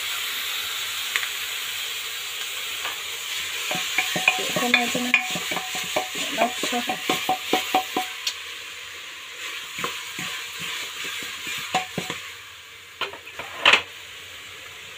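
Pieces of cow feet being handled and dropped into an aluminium pressure cooker: a quick run of clunks and knocks against the pot and plastic colander, then scattered knocks with one louder clunk near the end, over a steady sizzling hiss.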